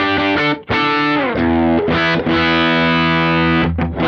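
Distorted electric guitar played through a Kemper Profiler's driven Marshall amp profile with its compressor stomp switched on. Quick picked notes give way about a second in to a chord that slides down in pitch, then chords left ringing, cut off briefly near the end before another rings out.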